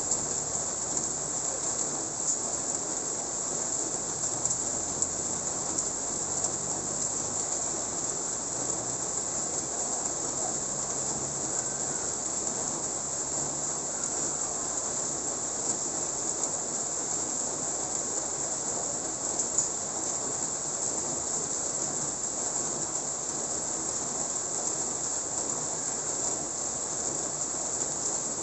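Steady rain falling on a street and roofs, a continuous even hiss with a few sharp ticks of single drips.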